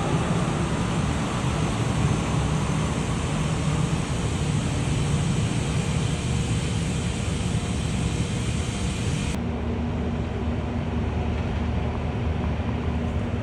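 Heavy construction machine's diesel engine running steadily with a continuous hum and hiss; about nine seconds in the sound changes abruptly to a steadier, slightly higher hum with less hiss.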